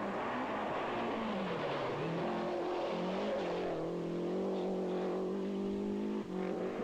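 Rally car engine at high revs. Its pitch drops in the first two seconds, climbs again and holds steady, then dips briefly near the end as at a gear change.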